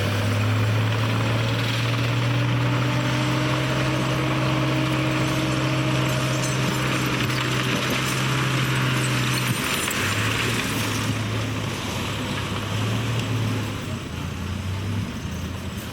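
Diesel engine of heavy earthmoving machinery running under load, a steady low drone with track and dirt noise over it. The drone eases off and turns uneven about nine and a half seconds in.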